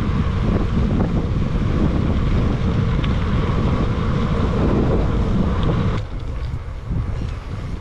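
Strong wind buffeting the microphone while cycling into a headwind: a steady low rumble with hiss above it. The hiss drops away suddenly about six seconds in.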